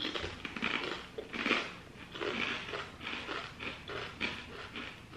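Hard kettle-cooked potato chips being chewed: an irregular run of crisp crunches, several a second.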